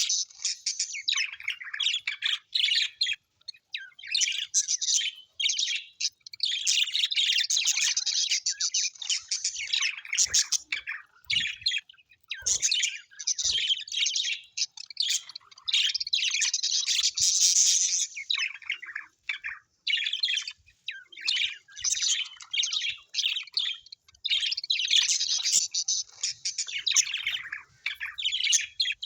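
Small birds chirping and twittering rapidly in dense bouts of a few seconds, with short pauses between them.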